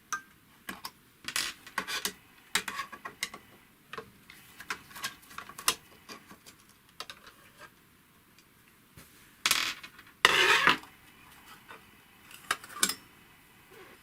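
Screwdriver and small steel parts clicking and clinking as the needle plate is unscrewed and lifted off a Necchi 559 household sewing machine, with two brief scrapes about two-thirds of the way through.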